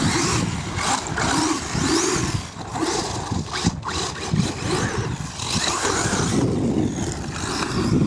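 Electric motor of a BSD Racing Blazer XB 4WD RC buggy on paddle tires whining up and down in pitch as it speeds and slides across sand.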